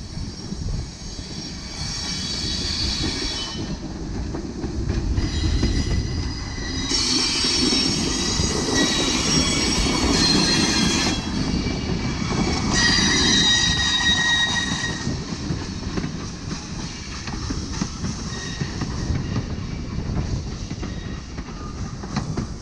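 Norfolk & Western 611, a J-class 4-8-4 steam locomotive, rumbles past close by with its passenger train. Its wheels squeal high on the curve in three bursts over the first fifteen seconds. The coaches then roll by with a steadier rumble and wheel clicks.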